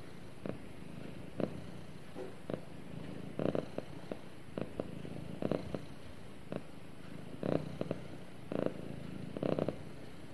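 Domestic cat purring steadily and contentedly while being stroked, with a louder pulse in the purr about once a second.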